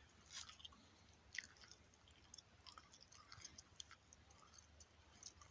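Near silence with faint, scattered short clicks and rustles.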